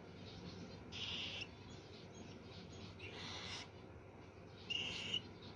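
A bird calling: three short, high, rasping calls about two seconds apart, the last with a clear whistled note in it.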